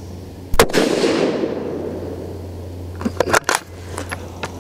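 A single rifle shot from a Ruger American Predator Gen 2 in .223 Remington fitted with Ruger's radial muzzle brake: one sharp crack with a long echo trailing off over a second or so. A quick run of sharp clicks follows about three seconds in.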